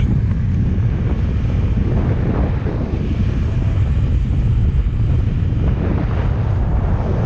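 Wind buffeting the microphone aboard a speedboat underway, a steady low rumble with the boat's running and water noise beneath it.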